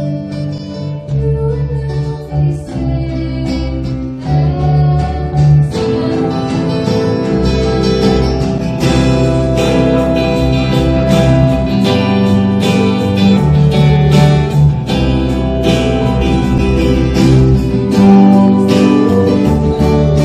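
Live band playing a song: acoustic guitar strumming under a female singer, with keyboard, the sound growing fuller with a steady beat about six seconds in.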